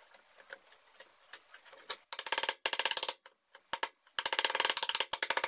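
Rapid, evenly spaced clicking in two bursts of about a second each, starting about two seconds in, with a few faint scattered clicks before.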